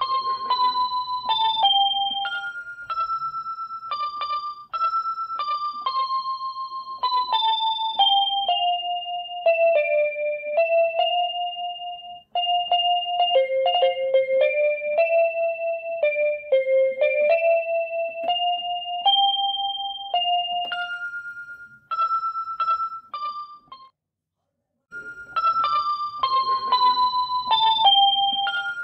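Background music: a simple keyboard melody played one note at a time, stepping down and back up. It stops for about a second near the end, then the same tune starts over.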